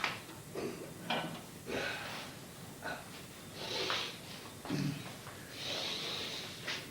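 A person breathing audibly in separate heavy, hissing breaths, with a few short knocks in between.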